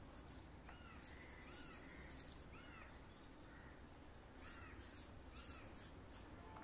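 Faint, short arching animal calls, repeated about eight times, over light scraping of a sweet pumpkin being peeled and cut against a boti blade, which is more frequent in the second half.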